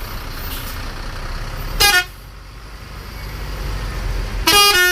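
Bus 'telolet' multi-tone horn: a short burst stepping down in pitch about two seconds in, then a louder burst of several tones changing pitch near the end, over a low rumble of engines and traffic.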